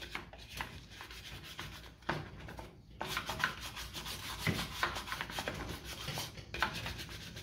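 A brush scrubbing caked-on old grease off the metal side housing of a manual reel mower in quick back-and-forth strokes, with a short pause about three seconds in.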